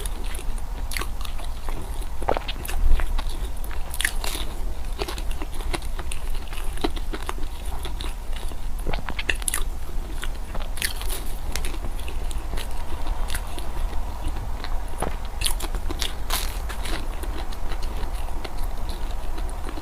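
Close-miked chewing and biting of Chinese food, with irregular crisp crunching and crackling clicks, over a steady low hum.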